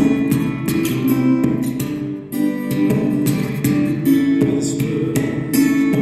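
Music: an acoustic guitar strumming chords in a steady rhythm.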